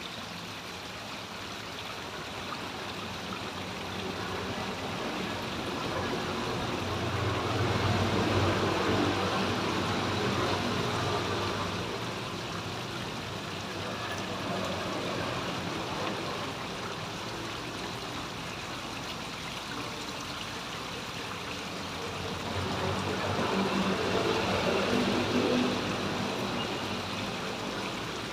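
Running water at a grotto, flowing steadily, swelling louder twice along the way.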